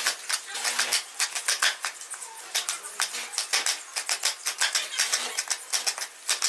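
Hands crumbling pressed, firm grated cassava into flakes: a quick run of crisp crackling rustles, several a second.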